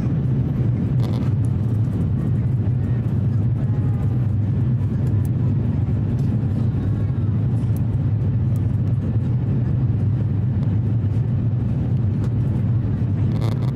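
Steady cabin drone of an Airbus A350-1000 in its climb after takeoff, heard from a seat over the wing: the Rolls-Royce Trent XWB engines and the rushing air make an even, low hum. Faint passenger voices sound in the background.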